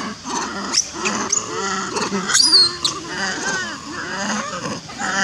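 Macaques calling in a troop: short chirps and lower calls throughout, with a loud high-pitched squeal a little over two seconds in.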